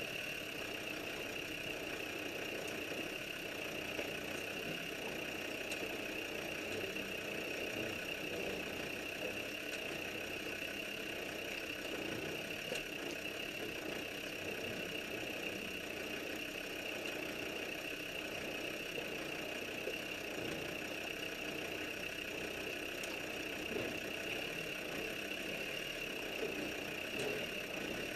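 Land Rover Defender engine running steadily at low revs as the vehicle crawls along a rocky lane.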